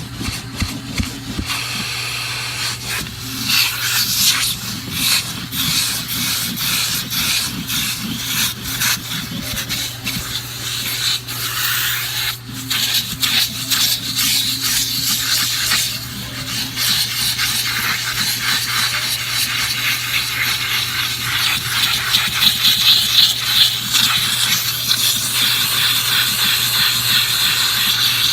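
Vacuum running with a steady hum while its nozzle is scrubbed back and forth over car carpet, a continuous scratchy rubbing, sucking up sandy carpet-freshener grit.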